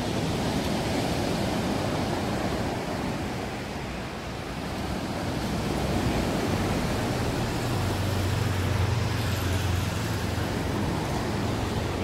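Steady rush of sea surf on the shore mixed with road traffic. A low vehicle engine hum swells past in the second half.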